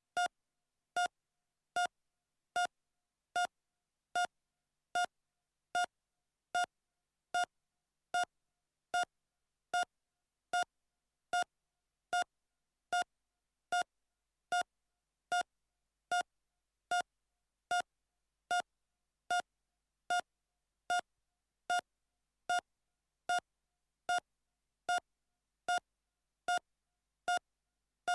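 Heart monitor beeping at a steady normal heart rate: short, identical high beeps, a little more than one a second (about 75 a minute), with silence between.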